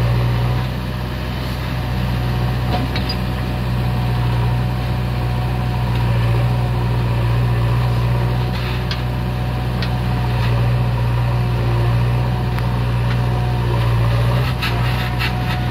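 JCB 3CX backhoe loader's turbo diesel engine running steadily with a deep hum while it powers the backhoe hydraulics to dig and lift soil. A few sharp knocks near the end come as the bucket tips soil into the trailer.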